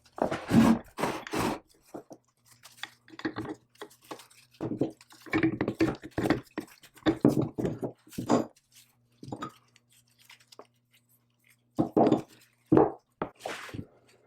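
An irregular series of short scrapes and knocks from hand work on metal parts, with quiet gaps between strokes and a faint steady hum underneath.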